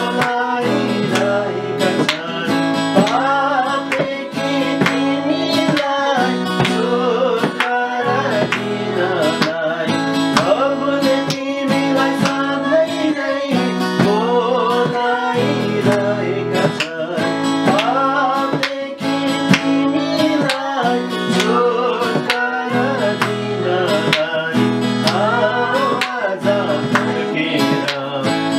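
A family singing a Nepali Christian worship song together in several voices, accompanied by a strummed acoustic guitar and a madal hand drum keeping a steady rhythm.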